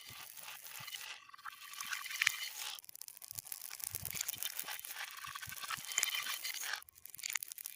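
A stream of beads pouring and clattering in a dense run of tiny clicks, played backwards, with a short lull near the end.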